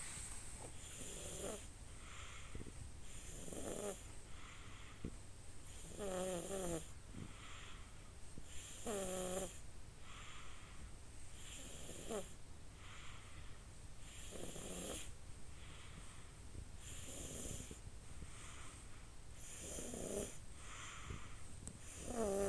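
A sleeping baby snoring in slow, regular breaths, about one snore every two and a half to three seconds, each short and pitched.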